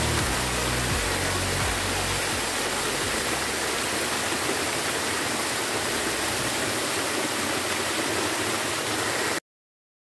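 Varciorog waterfall pouring down mossy rock ledges in a steady, loud rush of falling water. It cuts off suddenly near the end.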